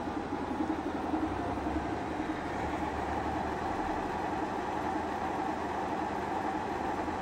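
Saeil TMV-2 vertical milling machine's knee travelling in slow vertical power feed: the feed motor and gearbox give a steady, even mechanical hum.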